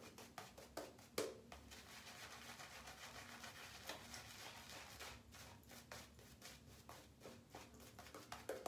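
Faint strokes of a shaving brush working a thin lather over a stubbled face: a run of soft swishes and small clicks, with one louder tap about a second in.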